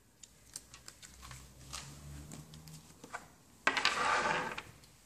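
Light clicks and taps of small wooden game pieces and playing cards being handled on a table, then a louder rustling scrape lasting about a second, about three-quarters of the way through.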